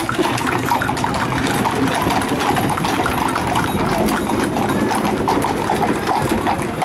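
Hooves of several horses and ponies clip-clopping on a tarmac road as they trot past pulling carts, a quick, overlapping run of hoof strikes.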